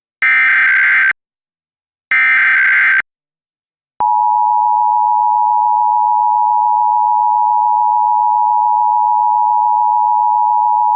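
Emergency Alert System tones: two bursts of the SAME digital header, each about a second long with a second between, then about four seconds in the steady two-tone attention signal (853 and 960 Hz sounded together) starts and holds. These signal the start of an EAS message, here a Required Monthly Test.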